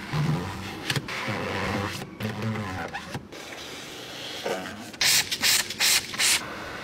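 A white sponge rubbing over a car's centre armrest, with four short, loud bursts of noise about five seconds in.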